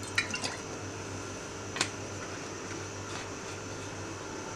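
Cooking oil heating in a nonstick karahi, giving a few faint crackles: three quick ones just after the start and one more a little before two seconds in, over a steady low hum.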